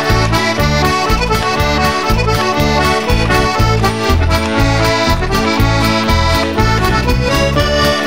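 Background music: an accordion playing a tune over a steady, pulsing bass beat.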